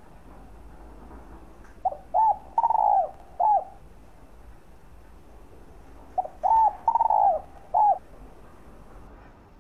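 Spotted dove singing: two phrases of four coos each, the third note the longest, about four seconds apart.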